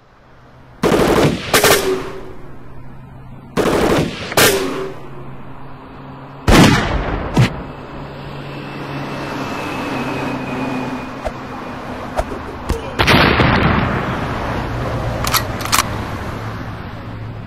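Gunfire sound effects: three loud shots or short bursts, each followed by a few sharp mechanical clicks, then a bigger blast with a long rumbling decay, an explosion like a grenade's.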